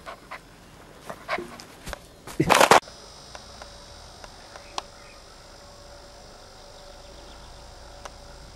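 Samoyed puppy nosing at the camera: irregular knocks and snuffling close on the microphone, the loudest a rubbing burst a little under three seconds in. After that the sound drops suddenly to a quiet, steady background with a faint hum.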